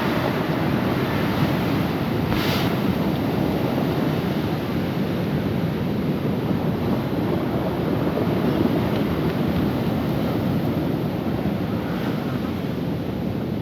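Rough storm surf on the Black Sea, waves breaking and rushing continuously, with wind buffeting the microphone.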